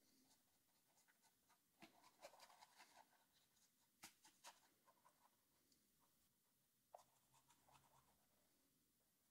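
Very faint scratching and tapping of a bristle paintbrush dabbing acrylic paint onto canvas, in three short clusters of strokes.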